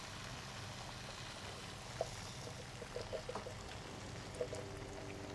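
Steady hiss of chilli ingredients sizzling in a pot over a gas burner, with a few light taps about two to three and a half seconds in and again near the end as canned kidney beans are tipped in.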